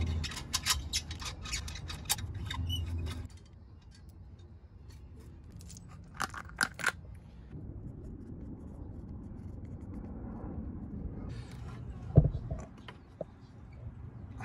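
Wrench and metal turbo parts clinking and scraping as clamps and bolts are loosened and the turbocharger comes off: a quick run of clicks over the first three seconds, a few sharper clicks about six seconds in, and one sharp knock about twelve seconds in.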